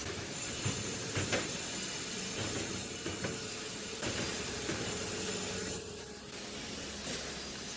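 Spiral fin-and-tube rolling machine running, crimping aluminium strip onto tube: a steady hiss-like mechanical noise with a faint hum and a few light clicks.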